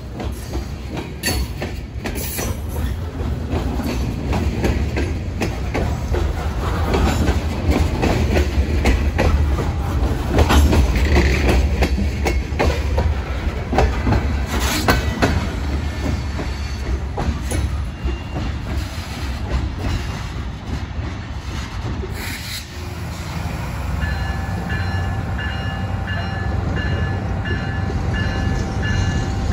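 Loaded covered-hopper freight cars rolling past close by, wheels clicking over rail joints with some flange squeal. About 23 seconds in, a diesel locomotive takes over: a low engine rumble with a steady pitched tone that pulses quickly.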